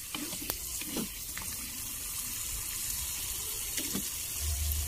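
Garlic cloves sizzling as they fry in very hot oil in a pan, a steady hiss broken by a few light clicks of the spatula.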